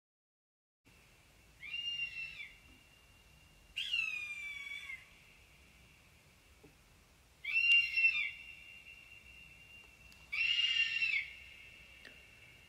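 A hawk calling four times, each cry about a second long and a few seconds apart, over a faint steady high tone.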